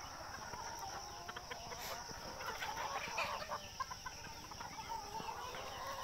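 A flock of desi (Indian native) chickens, hens and roosters together, clucking with many short, scattered calls.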